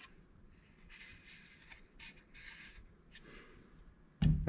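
Faint rubbing and scraping of torn HDPE plastic tube pieces being handled and set down on a plywood workbench, in several short scratchy strokes.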